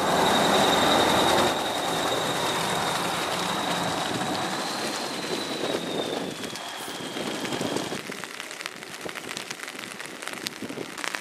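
Heavy off-road truck driving through mud and standing water, its engine and wet tyres making a steady hiss with a high whine over it. About eight seconds in this gives way to quieter rain pattering.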